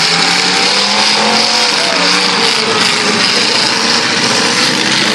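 Several demolition derby cars' engines running and revving at once, their pitches rising and falling over a loud, steady wash of noise.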